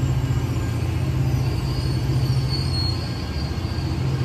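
Caltrain passenger coaches rolling past close by, their wheels rumbling steadily on the rails. A faint high wheel squeal rises in the middle, strongest about two and a half seconds in.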